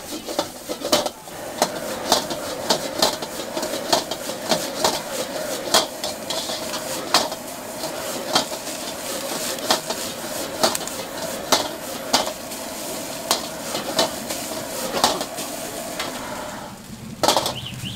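Metal ladle scraping and clanking against a carbon-steel wok as instant noodles with egg are stir-fried over high heat, a sharp clank roughly once a second over a steady sizzle. A louder pair of clanks comes near the end.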